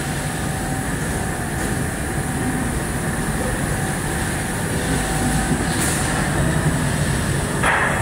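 Steady mechanical rumble and hum of running factory machinery, with a short burst of noise near the end.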